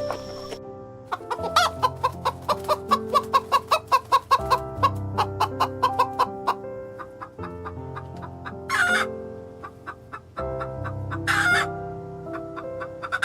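Background music with slow sustained chords, over which an animal gives a rapid run of short calls, about four a second, for several seconds, followed by a few brief harsher calls later on.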